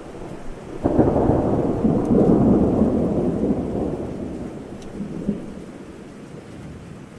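A peal of thunder breaks about a second in, loud and low, then rumbles and slowly fades away under steady rain.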